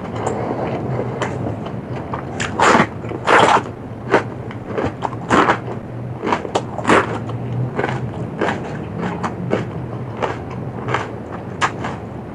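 A person biting and chewing food close to the microphone: irregular crisp crunches and wet chewing, with the loudest crunches coming a few seconds in. A faint steady low hum runs underneath.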